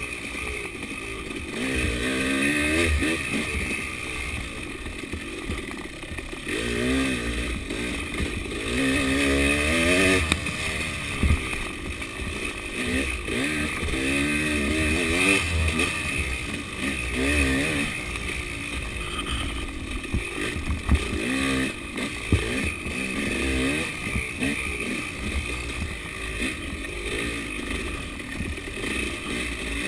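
KTM 300 two-stroke dirt bike engine revving up and down over and over as the throttle is worked on rough trail, with a few sharp knocks from the bike over the terrain.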